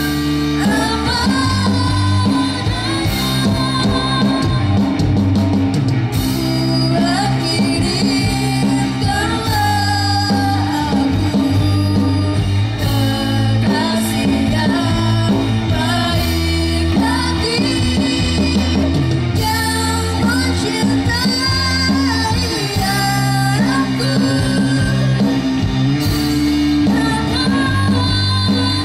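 Live rock band playing: drum kit, electric guitar and bass guitar under a sung vocal melody.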